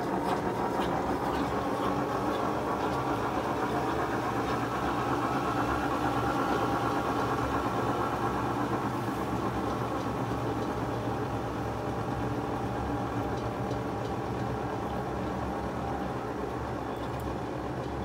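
Colormaq top-loading washing machine in its spin cycle: the drum spinning at speed with a steady motor hum, as the machine spins out the last of the water.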